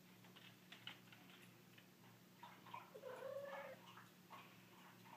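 Female tabby cat in heat giving one low, drawn-out yowl about halfway through, the calling typical of a queen in season.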